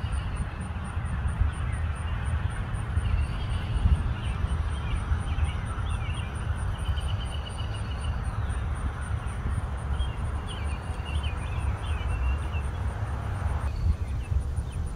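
Outdoor summer ambience: wind buffeting the microphone as a steady low rumble, with birds chirping in short runs several times and a high insect call pulsing about four times a second. A soft hiss stops suddenly near the end.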